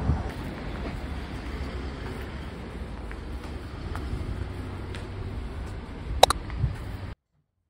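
Outdoor street ambience: a low steady rumble with a few faint ticks, and a short bright metallic clink about six seconds in. The sound cuts off abruptly near the end.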